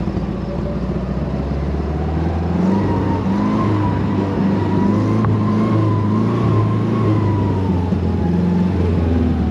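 Off-road vehicle's engine running steadily as it drives along a dirt trail. A high drivetrain whine rises and falls over the engine's drone, and there is a single brief click about halfway through.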